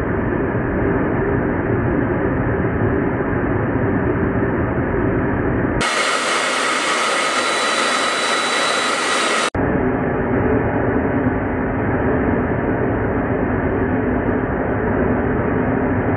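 Steady noise of a jet aircraft in flight, engine and rushing air together. About six seconds in it switches for a few seconds to a brighter, hissier jet whine with a few steady high tones, then the duller, deeper noise returns.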